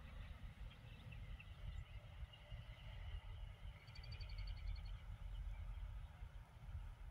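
Low wind rumble on the microphone with birds chirping, and a quick trill of high notes from a bird about four seconds in.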